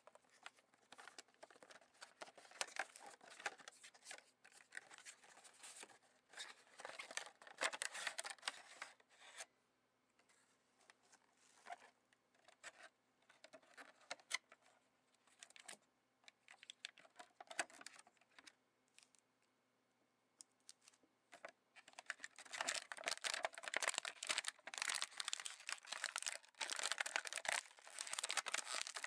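Toy packaging being opened by hand: a cardboard box, then the clear plastic bag around the toy, crinkling and rustling in irregular bursts. The crinkling is densest over the last several seconds.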